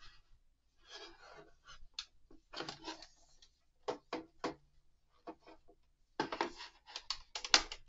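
Handling noise from a plastic action-figure display base and its backdrop panel being fitted together on a wooden board: scattered rubbing, scraping and sharp clicks, with a few clicks about four seconds in and a denser run of scraping and clicking near the end.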